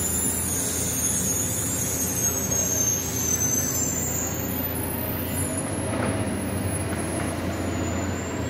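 Diesel engine of a fork-equipped loader running steadily as it lowers a one-and-a-half-tonne bulk bag, with a faint high whine over the first few seconds.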